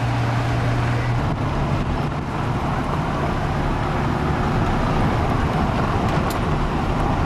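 A vehicle's engine and road noise heard from inside while driving: a steady rush with a low engine hum whose pitch changes about a second in.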